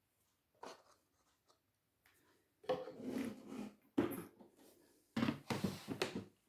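Handling noise of a plastic funnel being worked out of a lawnmower engine's oil filler neck: a faint tap about a second in, then a run of short knocks and scrapes from about three seconds in, loudest near the end.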